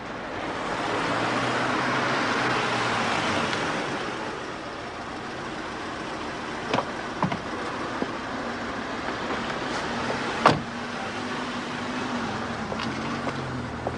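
Street traffic: a car passes over the first few seconds, then steadier traffic noise with a few short sharp knocks, the loudest about ten and a half seconds in.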